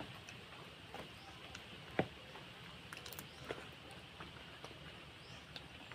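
Scattered soft clicks and taps over a low background hiss, about half a dozen in six seconds, the sharpest about two seconds in: eating sounds while feeding on grilled barbecue skewers.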